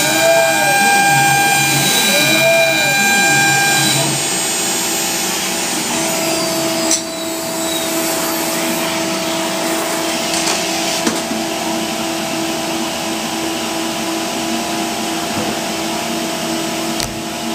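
Laguna CNC router carving wood signs: a steady spindle whine with machine noise, twice rising and falling in pitch in the first few seconds as the axes move, settling to a different steady tone about seven seconds in.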